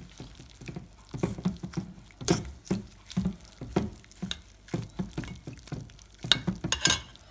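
A fork pressing and stirring wet lace curtain pieces in a stainless-steel bowl of pink acrylic dye bath, making irregular soft wet squelches and dabs. A few sharper clicks come near the end.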